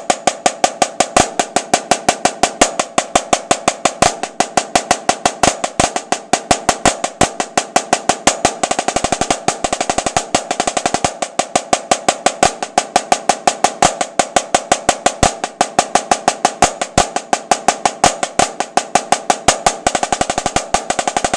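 Snare drum played with sticks in an eight-on-a-hand pattern: runs of even strokes with the right hand, then the same with the left, opening with a flam. A louder accent falls at the start of each hand change.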